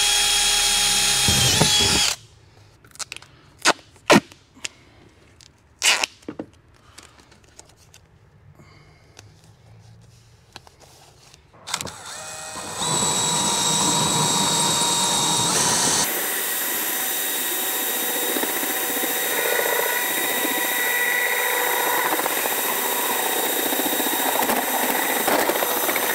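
Cordless drill whining steadily through a pilot hole in the wall, stopping about two seconds in; then a few knocks and clicks. From about halfway, a cordless drill with a 3.5-inch hole saw cutting through corrugated steel wall siding: a steady high whine with rough, grinding cutting noise that runs on until near the end.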